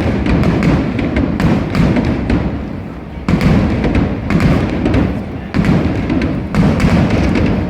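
Aerial fireworks shells bursting: deep booms with rumbling tails, one near the start and then about three, five and a half and six and a half seconds in, with sharp crackles between them.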